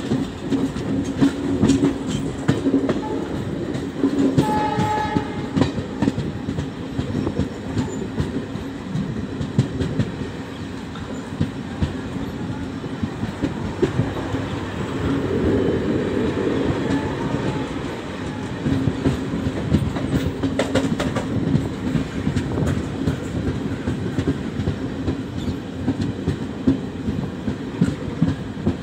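Indian Railways passenger coach running at speed: steady rumble with continuous clickety-clack of wheels over rail joints. A brief horn note sounds about five seconds in.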